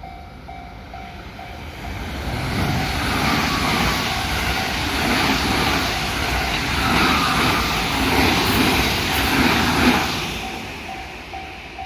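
A train passing over a Japanese level crossing, its noise building over the first couple of seconds and dying away near the end, while the crossing's warning bell rings in steady, evenly spaced strokes, heard plainly before and after the train.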